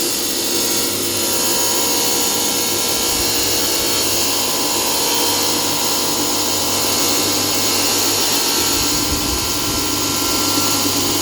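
Single-phase electric tile-cutting saw running steadily, its blade grinding through a long ceramic tile with a constant high whine and hiss.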